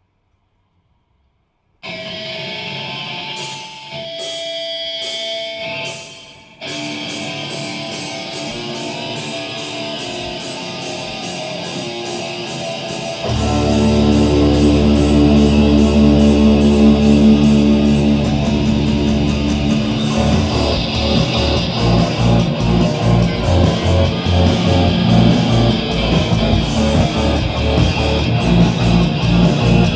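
Rock band playing live. After about two seconds of near silence, an electric guitar starts with cymbal hits. About thirteen seconds in, bass guitar and drums come in much louder, settling into a fast, pounding beat.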